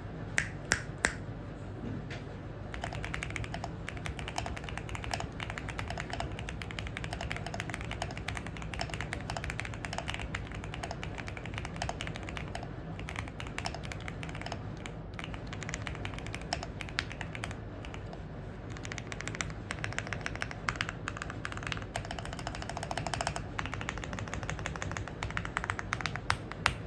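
Typing on a mechanical keyboard: a fast, continuous run of key clicks, with a few louder sharp clacks near the start and again near the end, over a steady low hum.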